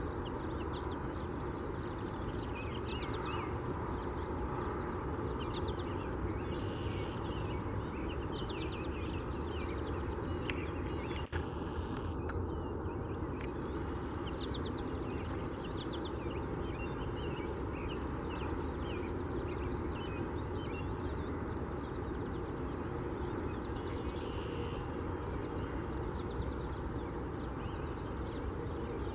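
Several small birds chirping and singing in short trills over a steady low rumble of distant traffic, with one brief click about a third of the way through.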